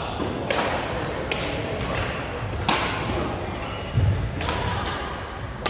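Badminton rackets striking shuttlecocks, several sharp knocks at uneven intervals over a steady gym-hall hubbub, with a few short high squeaks of court shoes on the wooden floor.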